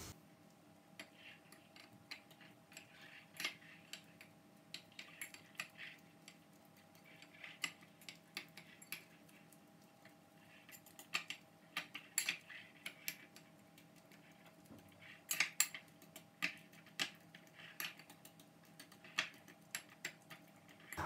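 A metal fork clinking and tapping against a bowl as it mashes a banana into purée: light, irregular clinks that come in bunches.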